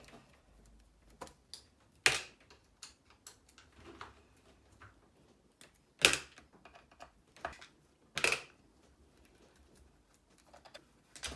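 Irregular small clicks and taps of hand tools and hard plastic parts as the screws holding an RC monster truck's front bumper are undone, with three louder clacks about two, six and eight seconds in.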